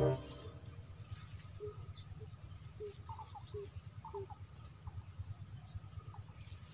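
Quiet outdoor ambience: a steady low rumble with a series of faint, short chirps a couple of seconds in.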